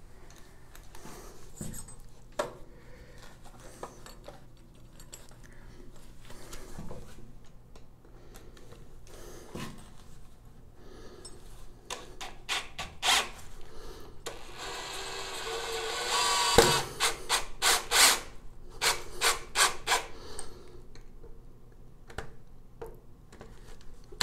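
Ryobi cordless drill driving a screw through a brass shower slide-bar bracket into a wall anchor in a tiled wall. After scattered small handling clicks, the drill runs for about two seconds, followed by a string of short bursts as the screw is snugged down tight.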